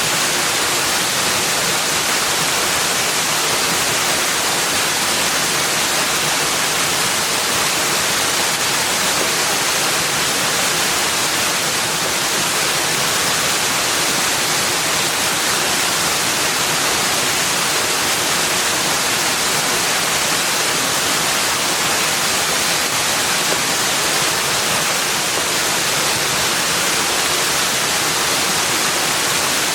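Steady, unbroken rushing water, an even hiss with most of its energy in the upper range.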